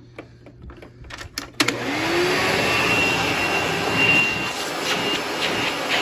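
A few handling clicks, then a Hoover Supreme self-propelled upright vacuum cleaner is switched on about a second and a half in. Its motor spins up and runs steadily for a hose-suction test, with a thin whistle of air that comes and goes.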